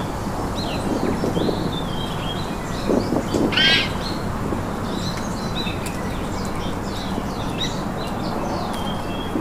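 Forest birds calling, many short high chirps over a steady background hiss, with one louder, harsher call about three and a half seconds in.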